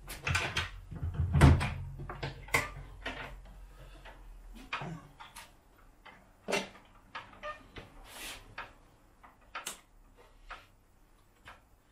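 Wooden doors of a wall-mounted tool cabinet being swung open, with a loud knock and low bump about a second and a half in. Scattered sharp clicks and taps follow.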